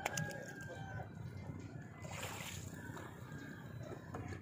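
Water sloshing and splashing against a small paddled boat, with a short splash from a paddle stroke about two seconds in.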